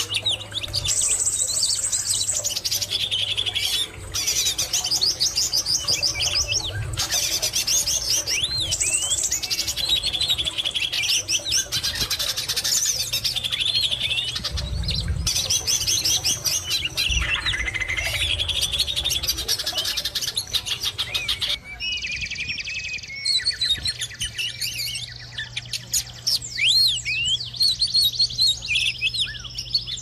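A dense chorus of bird calls: many high chirps, rapid trills and short rising and falling whistles, overlapping without pause. The mix of calls changes a little past two-thirds of the way in.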